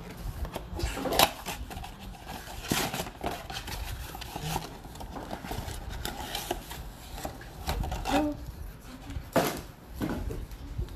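A cardboard trading-card box being torn open by hand and its foil-wrapped packs pulled out. Irregular scraping and rubbing of cardboard and foil is broken by short sharp clicks and knocks, the loudest about a second in.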